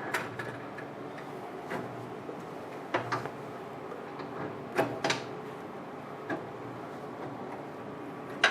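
Metal parts of a rotary bottle jig being set onto a UV flatbed printer's table: scattered light clicks and knocks, about eight in all, the sharpest near the end, over a steady low hum.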